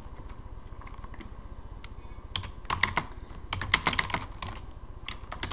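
Computer keyboard keys clicking as a line of code is typed: a few scattered keystrokes at first, then quick runs of keystrokes from about two seconds in.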